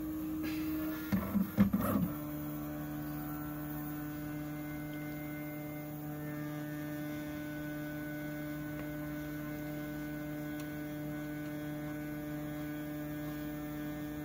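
Original Prusa i3 MK3 3D printer at rest, heated up and about to begin automatic bed leveling, giving off a steady electrical hum. About a second in there is a brief, loud burst of motor noise, after which the hum settles at a lower pitch.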